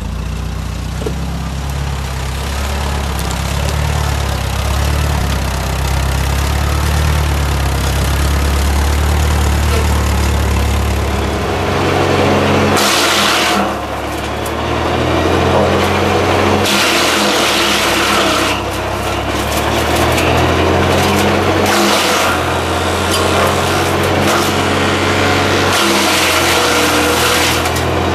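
1951 Case V series tractor's four-cylinder engine running steadily. From about halfway, a Salsco wood chipper chews through branches in several loud, noisy bursts over the engine.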